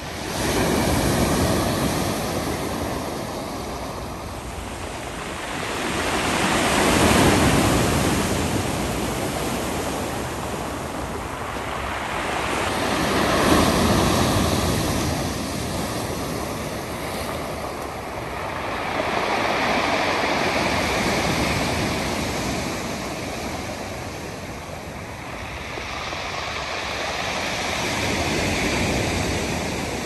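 Sea surf breaking and washing over a pebble beach, the sound swelling and ebbing in slow surges about every six to seven seconds.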